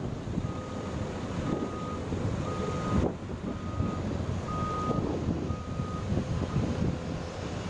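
A vehicle's reversing alarm beeping about once a second over a low engine rumble; the beeps stop about six seconds in.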